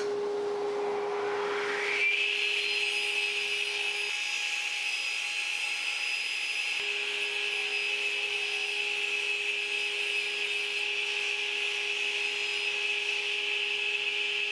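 Radial arm saw switched on, its motor whine rising to speed over about the first two seconds, then running steadily while a board is fed through it for a rip cut.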